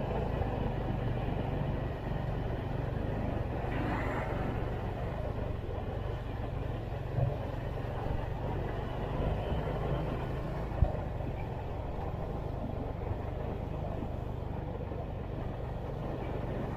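A road vehicle's engine running steadily while driving along a city street, with road noise, and a single sharp knock about two-thirds of the way through.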